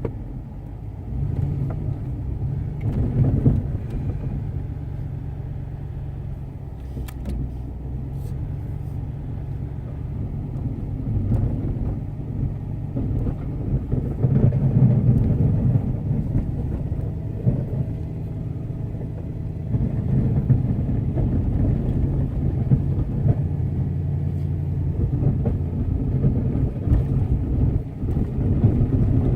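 Pickup truck engine running as the truck drives off, its level rising and falling with the load.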